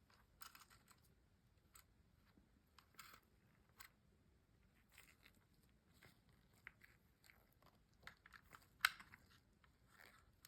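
Faint, scattered clicks and small scrapes of a DJI Mini 3 Pro drone's small plastic parts and wiring being handled by hand during repair, with one sharper click toward the end.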